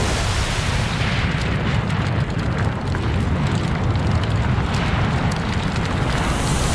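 Fire-and-rumble sound effect: a steady, dense low rumble with a haze of noise above it and scattered faint crackles.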